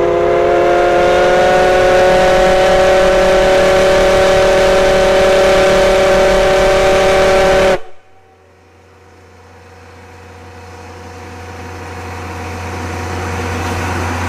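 Steam locomotive's chime whistle blowing one long blast of several tones at once, sounding for departure, then cutting off suddenly about eight seconds in. Afterwards a low, quieter sound builds slowly.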